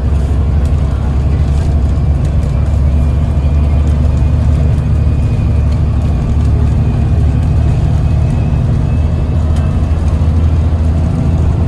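Yutong ZK6126HG city bus heard from inside the passenger cabin while under way: a steady low engine drone with road and tyre noise.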